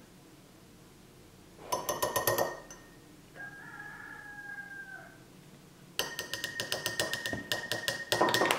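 A metal measuring spoon clinks rapidly against a glass mason jar, in a short run about two seconds in and a longer, louder run near the end. In between, a rooster crows faintly in the background, one held call that dips at the end.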